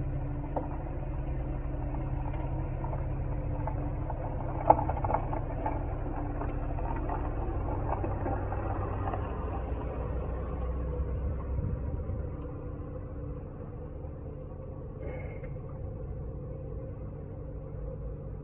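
A car engine running steadily with a low rumble, with a sharp click just under five seconds in.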